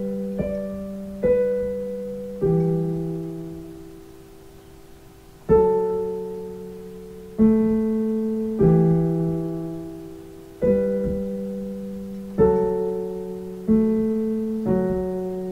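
Digital piano played slowly, a simple melody in chords, each chord struck and left to ring down, about one every one to two seconds, with one chord held for about three seconds a few seconds in.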